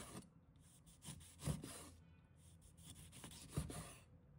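A cleaver slicing a lemon into thin rounds on a wooden cutting board: a few faint, separate knocks and scrapes as the blade cuts through and meets the board.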